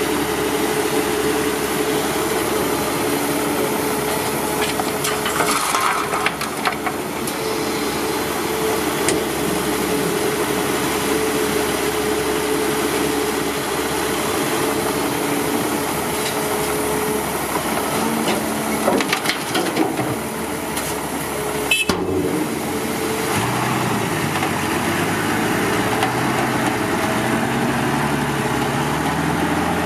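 Heavy vehicle engine running steadily. After a sharp click about two-thirds of the way through, the engine note climbs in pitch.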